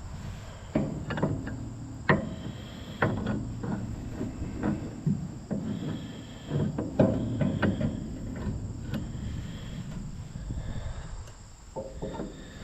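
Steel drive-shaft parts knocking and clanking irregularly as the shaft is twisted and worked onto its splined sleeve and the gearbox, a few strikes ringing briefly.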